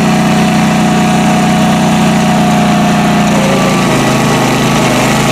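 Toro stump grinder running at steady speed while grinding an oak stump. About three and a half seconds in, the engine's pitch shifts slightly.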